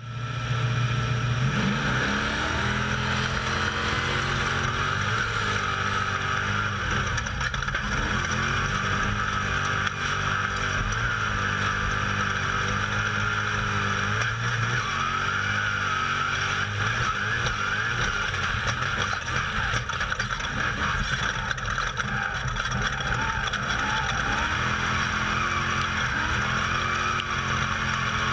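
Onboard sound of an off-road race vehicle at speed: the engine running hard, its pitch rising and falling over and over as the throttle is worked, under a steady rushing noise.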